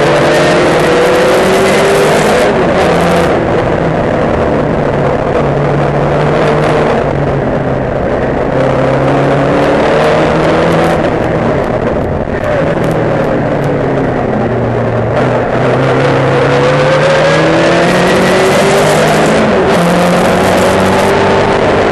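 Onboard sound of a Thunder Saloons racing car's engine at high revs, under race load. Its pitch climbs and drops repeatedly with throttle and gear changes, with a short dip in loudness about twelve seconds in.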